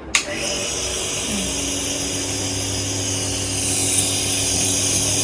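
Nebulizer's electric air compressor switched on with a click, then running with a steady hum and a hiss of air.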